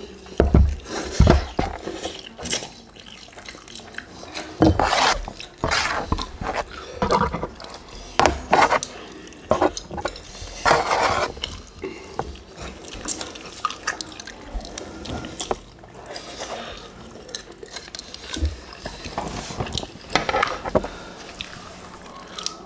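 Close-miked eating sounds: wet chewing, smacking and slurping of spicy instant noodles and fried chicken, in short irregular bursts with occasional clicks.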